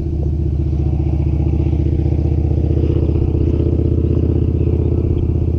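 A motor engine running steadily at constant speed: a low drone with a fast, even pulse.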